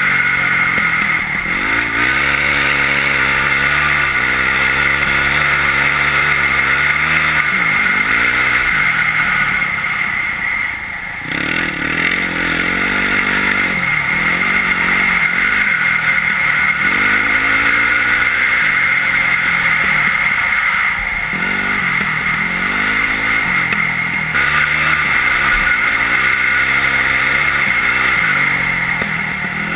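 Yamaha WR450F single-cylinder four-stroke enduro engine with an Akrapovič exhaust, ridden hard: the revs repeatedly climb and fall through the gears, with a brief throttle-off about eleven seconds in. A steady hiss runs underneath.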